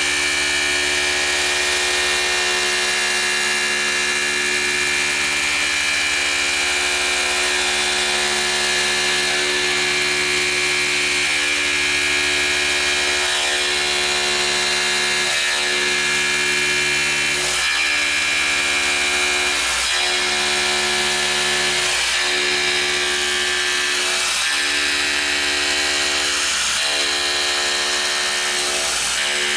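Tormach PCNC 1100 CNC mill end-milling 6061 aluminum: a steady spindle and cutting whine whose tone shifts every couple of seconds as the cutter moves through the pockets.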